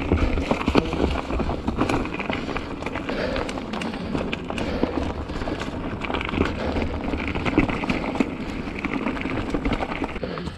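Mountain bike being ridden uphill over rough trail, heard close from a chest-mounted camera: a constant rattle of frequent clicks and knocks from tyres, chain and frame over a low rumble of wind and movement on the microphone.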